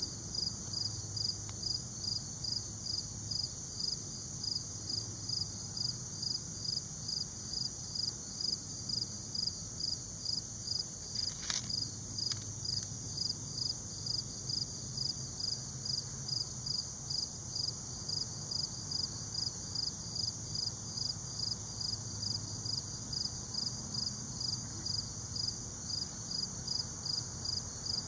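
Insects calling steadily outdoors: a continuous high-pitched buzzing trill that pulses evenly about twice a second. A single short click comes about halfway through.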